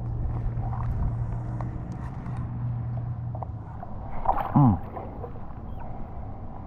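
Spinning fishing reel being cranked to bring in line, a steady whir that stops about three and a half seconds in. About a second later comes a brief sound falling in pitch, the loudest moment.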